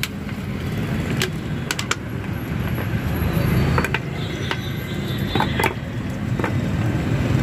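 Cooking at a street-food wok: a steady low rumble, with a few sharp clicks and taps as water and bottled sauces are added to the steel pan and the ladle rests in it.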